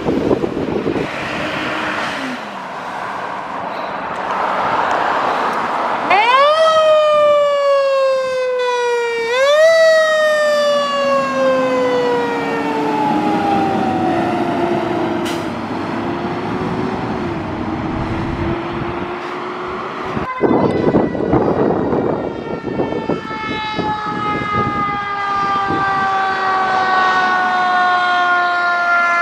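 Sirens of Palm Beach Gardens Fire Rescue trucks responding: a siren sweeps sharply up and falls slowly, twice, about six and nine seconds in, then a lower tone slowly rises. About twenty seconds in a second siren starts abruptly, its pitch falling slowly, over the trucks' engine and road noise.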